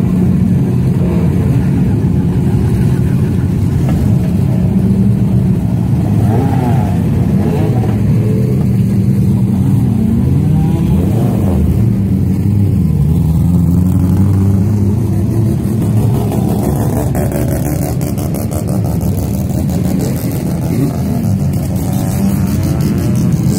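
Several racing touring car engines idling loudly at low speed. The pitch rises and falls several times as the throttle is blipped.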